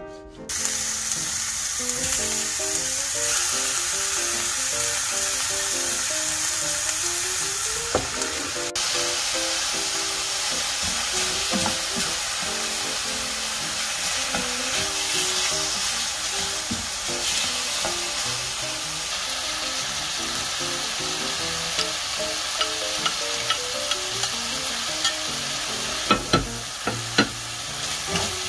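Cubed pork belly sizzling in a frying pan as it is stirred with a spatula, with a few sharp knocks near the end.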